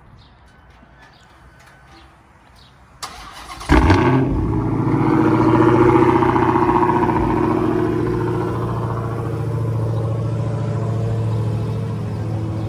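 Dodge Challenger Hellcat's supercharged 6.2-litre HEMI V8 remote-started from cold: about three seconds in the starter cranks briefly, the engine catches with a loud flare, then settles into a steady cold idle.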